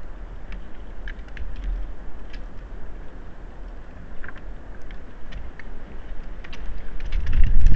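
Wind rumbling on the microphone, swelling much louder near the end, with scattered sharp clicks and crackles over it.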